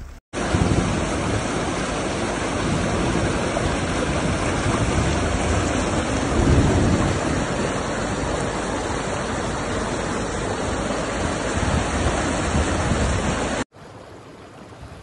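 Muddy flash-flood torrent rushing loudly down a rocky wadi, a steady roar of water. Near the end it cuts abruptly to a much quieter flow of water.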